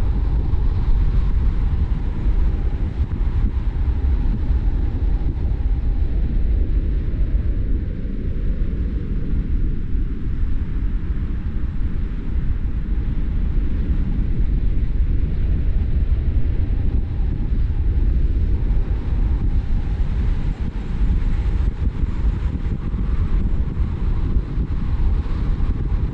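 A car driving along a road: a steady low rumble of tyre and road noise.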